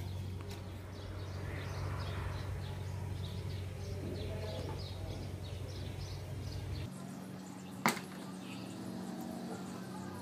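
Quiet background: a low steady hum with faint high chirping, then a single sharp click about eight seconds in.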